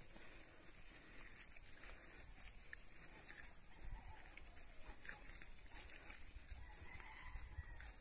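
A rooster crowing faintly near the end, over a steady high-pitched hiss, with soft low thuds of footsteps on a dirt path.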